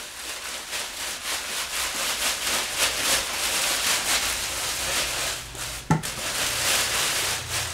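Thin plastic sheeting crinkling and rustling as it is pulled off a motorcycle wheel, with one sharp knock about six seconds in.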